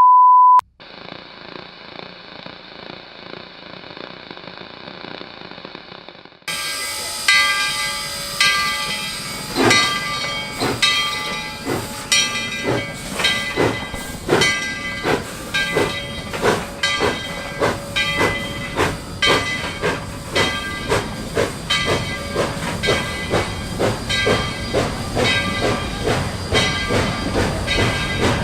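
Steam locomotive: a steady hiss of steam, then from about six seconds in the exhaust chuffs begin, slow at first and gradually quickening as it pulls away.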